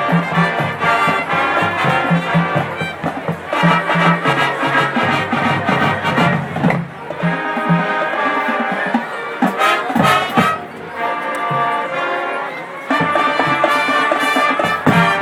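High school marching band playing a jazz arrangement, the brass section carrying the tune, with a few sharp drum strokes about halfway through.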